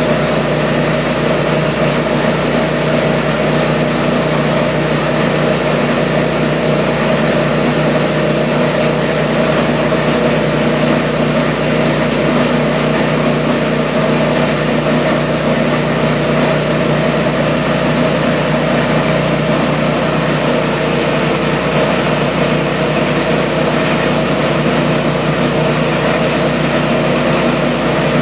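SEM Model 2-SSD solid-state disintegrator running steadily with a constant hum. Its shredder and filtration system are on together.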